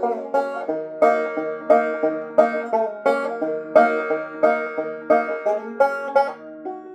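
Banjo picked two-finger style, a steady run of plucked notes with several notes a second.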